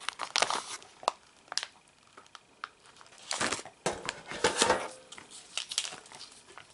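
Plastic dog-treat pouch and other packaging crinkling and rustling in the hands as they are handled and lifted out of a cardboard box, in irregular bursts.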